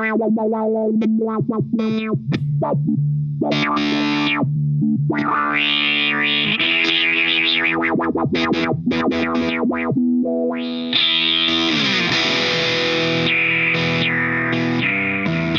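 Electric guitar played through a fuzz, filter and delay effect that is controlled from the GTC REVPAD touchpad: distorted sustained notes with a trailing echo, chopped into rapid stutters in places and swept by the filter.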